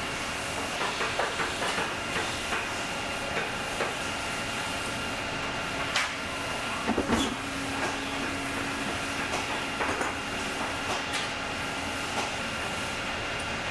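Swing-arm clicker cutting press running with a steady hum and hiss, while steel cutting dies and leather are handled on its cutting bed with light knocks and taps; a louder clunk about halfway through as the press cuts.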